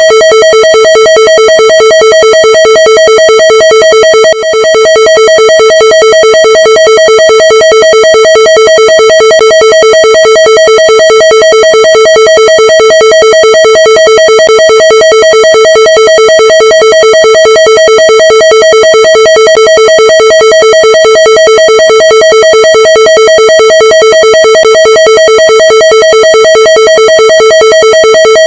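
Emergency Alert System attention tone: two steady tones sounding together, loud and distorted, running without a break apart from a brief dip about four seconds in.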